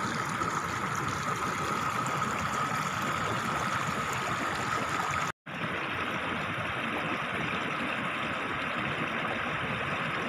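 Steady rushing of flowing river water, with a faint steady high tone over it in the first half. The sound cuts out for a moment about five seconds in, then goes on as before.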